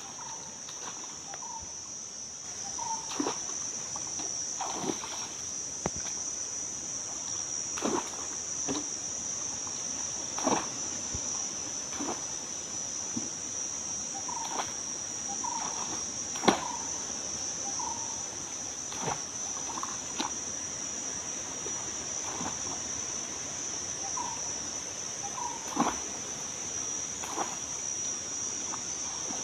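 Steady high-pitched drone of insects, with a wooden pole plunging into shallow pond water in sharp splashes and knocks every one to three seconds.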